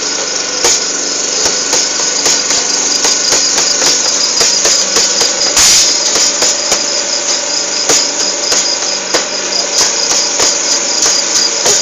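Improvised percussion of pots and containers struck with sticks, with an acoustic guitar, playing an instrumental passage of a song. The strikes come quickly and unevenly throughout.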